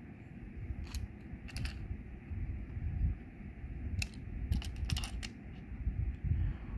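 A wrench and stainless steel pressure-washer fittings clicking and clinking against each other as a quick-connect coupler is gripped and tightened by hand, with scattered sharp metal clicks, a cluster of them about five seconds in, over low handling rumble.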